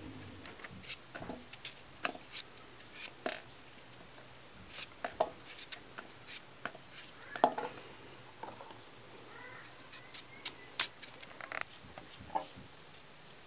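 Knife cutting raw potatoes into chunks in the hand, with irregular sharp clicks and knocks as the blade goes through and the pieces drop into a metal colander; the loudest knock comes a little past the middle.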